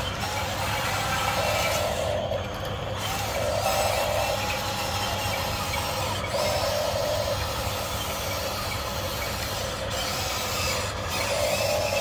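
Electric gear motors of Huina radio-controlled toy excavators whining in runs of a second or two as the boom, arm and bucket move, over a steady low hum.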